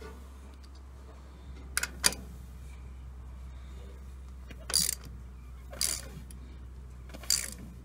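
Ratchet wrench working the bolts on a tractor's water pump housing: two sharp metal clicks, then three short rasping ratchet strokes about a second apart, over a steady low hum.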